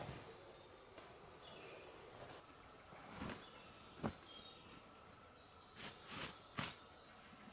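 Faint forest ambience with a few short, high bird chirps and a handful of soft knocks and rustles, the sharpest about four seconds in and three more close together near the end.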